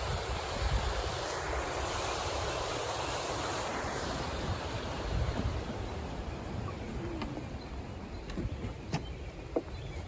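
Wind rushing over the microphone with a low rumble, strongest for the first few seconds and then easing off. A few light knocks come near the end.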